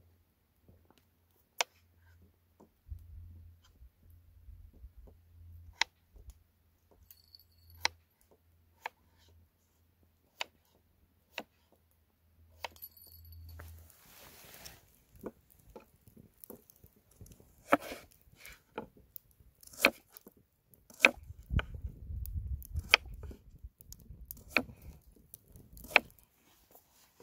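Kitchen knife cutting vegetables on a wooden cutting board: single sharp knocks a second or two apart, then quicker, denser slicing strokes in the second half.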